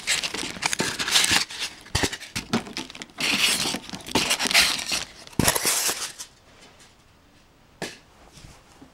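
Plastic packaging bags crinkling and rustling against styrofoam and cardboard as packed parts are handled inside a shipping box. The rustling is loud and busy, dies away about six seconds in, and is followed by one light click.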